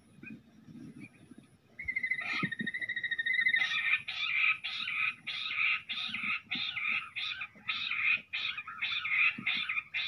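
Jungle bush quail calling: a fast trill starts about two seconds in, then gives way to a long run of harsh, evenly repeated calls, a little over two a second.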